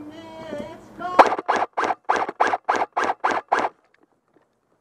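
Airsoft rifle firing semi-automatic, about ten quick shots at roughly four a second, then stopping.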